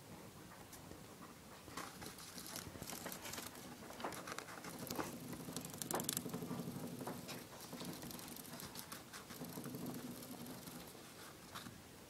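Gerbil gnawing and crunching a piece of sun-dried corn close to the microphone: rapid small crunching clicks in bouts, busiest and loudest in the middle.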